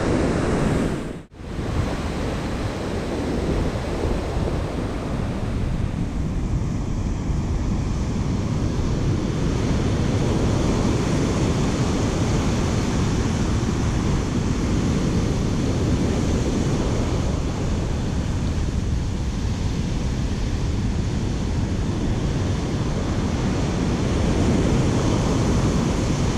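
Surf breaking and washing up a sandy beach, with wind rumbling on the microphone. The sound drops out for a moment about a second in.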